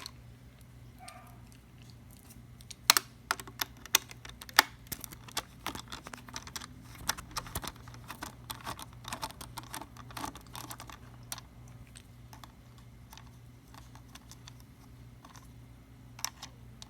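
Irregular small clicks and taps of a magnetic screwdriver on the screws and metal parts of a Silent Panther coffee grinder being taken apart, with a sharper click about 3 seconds in and another a little before 5 seconds.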